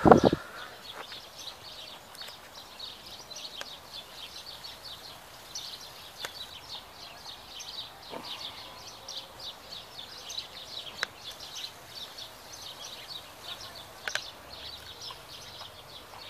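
Many small birds chirping and twittering without a break in the park trees. A brief loud thump right at the start is the loudest sound.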